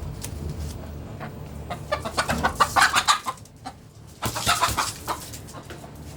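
Chickens clucking and squawking in two loud bursts, one about two seconds in and another about four seconds in, over a low steady hum.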